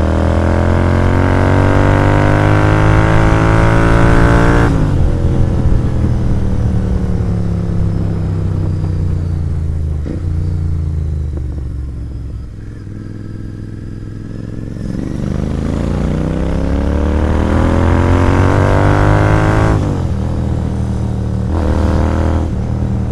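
Royal Enfield Interceptor 650's parallel-twin engine through an aftermarket sport exhaust, riding. It revs up for about five seconds, then the throttle closes and the revs fall away for several seconds. It then pulls up through the revs again, with gear changes near the end.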